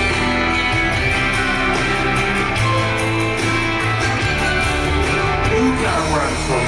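Show soundtrack music played loud over a nighttime projection show's sound system, with sustained notes and chords.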